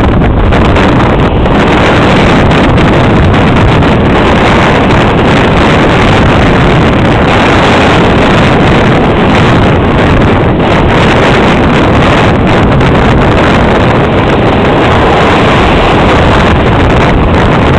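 Strong wind buffeting the camera microphone, a loud, steady rush that overlays waves breaking and washing up on the sand.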